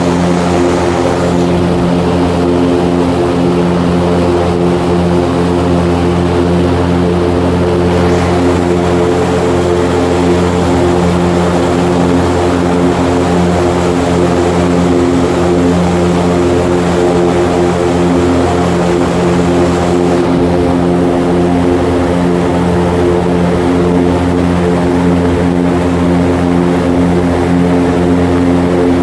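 Airboat's engine and air propeller running steadily under way: a loud, even drone that holds the same pitch throughout.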